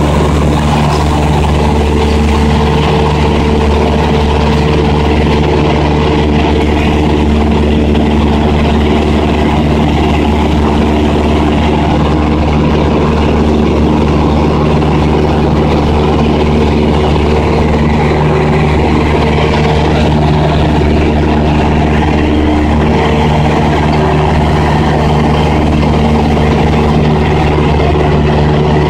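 Cessna 172's piston engine and propeller droning steadily in flight, heard from inside the cabin: a loud, even hum of several steady tones over a rushing noise.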